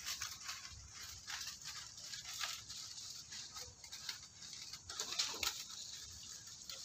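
Irregular light tapping and rustling of monkeys moving on loose wooden planks, with a cluster of sharper taps about five seconds in.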